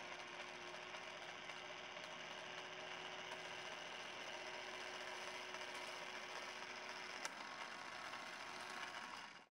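OneTouch automatic jar opener, a battery-powered gadget, running on a plastic jar lid: its small geared motor whirs steadily as its arms grip and twist the lid. A sharp click comes about seven seconds in, the whir changes pitch after it, and the sound stops suddenly near the end.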